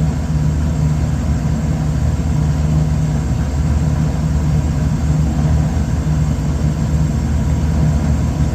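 Trane rooftop package air conditioner running, its blower motor and fans giving a steady low hum with a faint higher whine, unchanging in level.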